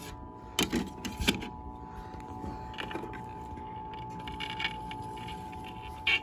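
Truetone kiddie record player's turntable running with a steady whine, which the owner puts down to dried-up spindle grease. Two sharp knocks about half a second and a second in.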